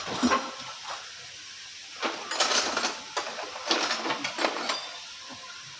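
Metal parts and tools of a lorry gearbox being handled, clinking and clattering: a brief clink at the start, then two longer runs of rattling clanks about two seconds in and again near four seconds.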